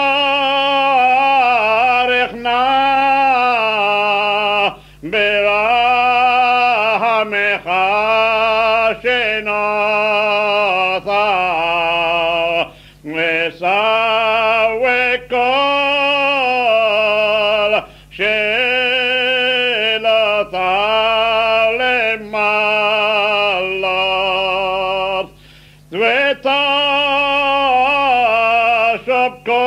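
A man singing a Hebrew liturgical prayer melody of the Calcutta Jewish tradition, unaccompanied. He sings long held, wavering notes with ornamented turns in pitch, in short phrases broken by breaths.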